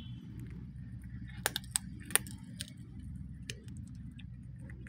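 Several sharp clicks, a cluster of about five starting a second and a half in, over a steady low hum.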